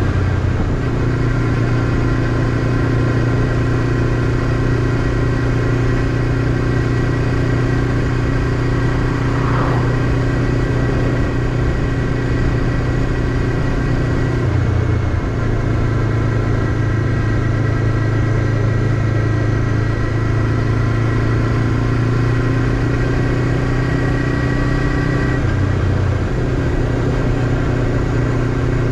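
Honda CBF500 motorcycle's parallel-twin engine running steadily at cruising speed, with road and wind noise. The engine note dips briefly and picks up again a little before halfway and once more near the end.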